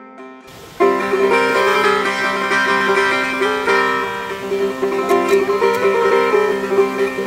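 Background music: a plucked-string instrumental tune that starts sharply about a second in, after the previous music fades out.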